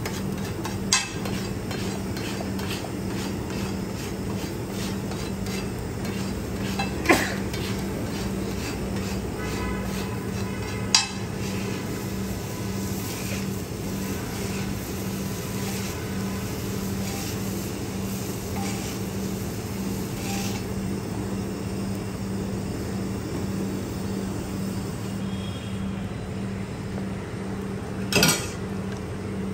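Metal spatula scraping and tapping on a large flat iron griddle (tawa) as egg is worked and lifted off it. Quick repeated scrapes run through the first half, with a few sharp metal knocks on the pan, the loudest near the end, over a steady low hum.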